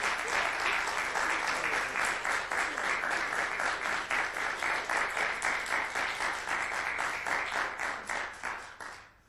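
Audience applauding, a dense steady clapping that fades and then cuts off abruptly near the end.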